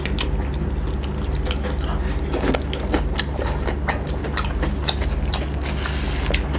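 Close-miked chewing and mouth smacking of people eating pork curry and rice with their hands: a quick, irregular run of wet clicks and smacks over a steady low hum.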